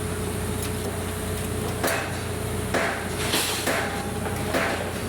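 Hammer blows, about five irregular strikes in the second half, each with a short ring, over a steady background hum.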